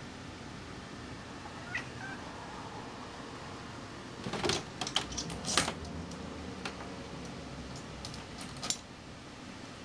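Kitten hunting a fly at a window, giving a short chirp and then a quick run of sharp clicking chatters, the odd hunting noises the owner calls barking. Another single click comes near the end.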